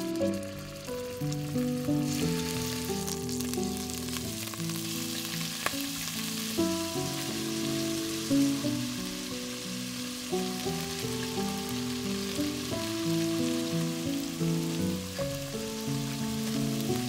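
Beef cubes searing in hot olive oil in a Dutch oven: a steady sizzle that builds over the first couple of seconds as more pieces go into the pot, under background music.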